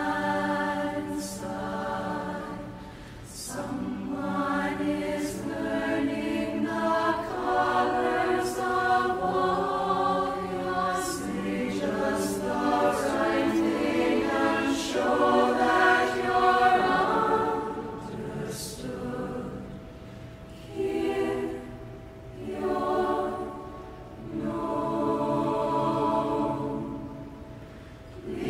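A choir singing slow, sustained chords in phrases, with brief pauses between them.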